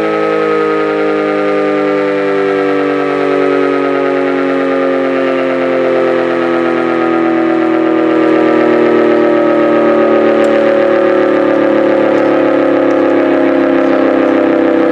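Decot Red Arrow Model 12 mechanical siren sounding loud, its pitch falling slowly and steadily as the rotor slows.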